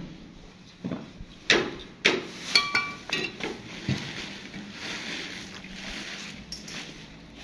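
Hand tools knocking and clinking on marble tiles and mortar, several sharp knocks with one short metallic ring, then a steady scraping from about four seconds in.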